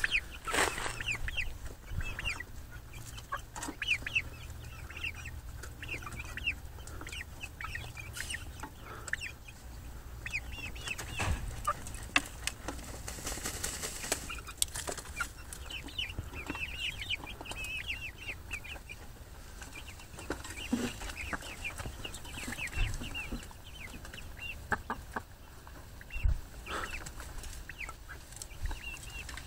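A flock of hens clucking and giving many short, high calls, with a few sharp knocks and scuffs as they peck and scratch in the dirt.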